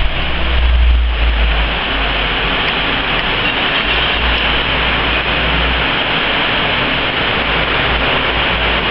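Heavy storm rain and strong wind gusts: a loud, steady rush of downpour, with wind buffeting the microphone in a low rumble that is strongest in the first second and again from about four to six seconds in.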